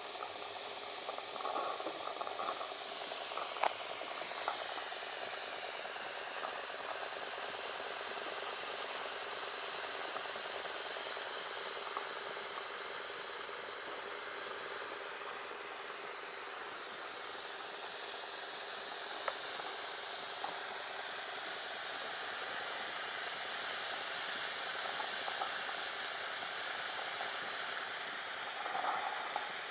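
Wilesco D14 model stationary steam engine hissing steadily with escaping steam as it runs. The hiss drifts slowly in pitch, sinking a few seconds in and shifting again midway.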